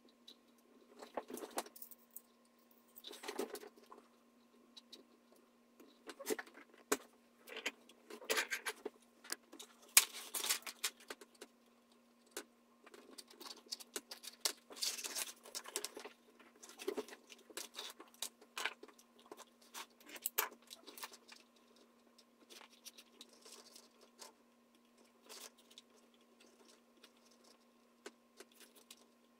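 Leather straps and metal buckle hardware being handled: scattered clicks, light jingles and rustles, with a faint steady hum underneath.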